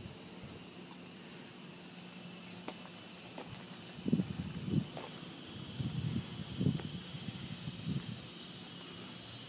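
A steady, high-pitched insect drone, with a few soft low thumps around the middle.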